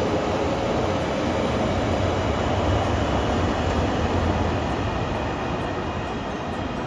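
A train running past with a steady rail rumble, easing slightly near the end as it moves away.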